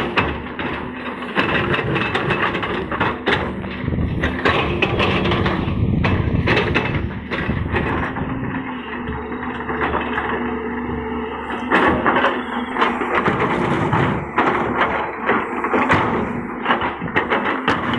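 Excavator's diesel engine running steadily as it works, with frequent sharp knocks and clanks throughout.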